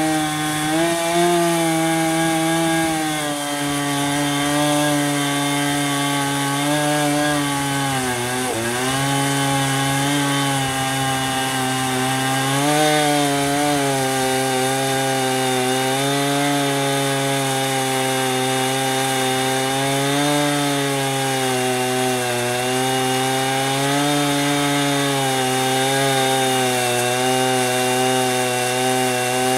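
Husqvarna Rancher 455 two-stroke chainsaw running at full throttle under load, ripping sugar maple lengthwise with a 24-inch bar and ripping chain on a chainsaw mill. The engine note holds steady with small wavers and dips sharply once, about eight seconds in, as the saw bogs in the extremely hard wood before picking back up.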